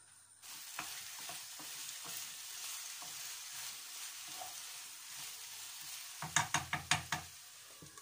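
Potatoes, onions and tomato masala sizzling in a kadai while a spatula stirs and scrapes them; the sizzle starts suddenly about half a second in. Near the end comes a quick run of about six sharp knocks against the pan.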